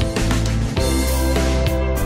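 Music playing, with sustained notes and a repeated beat.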